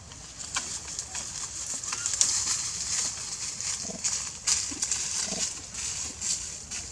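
Forest ambience: a high hiss that swells and fades, with scattered clicks and rustles and a few short rising chirps.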